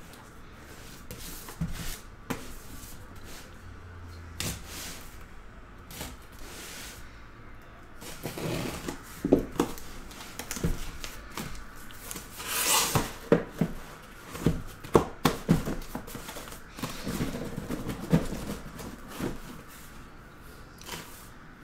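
Corrugated cardboard shipping case being handled on a tabletop: sliding, scraping and knocking, sparse at first and busier from about eight seconds in, with a longer rasping scrape near the middle.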